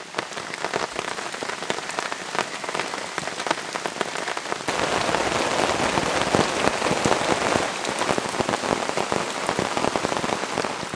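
Steady rain falling through the forest, many close drops pattering. A little before halfway it grows louder and fuller, rain pattering on a tarp overhead.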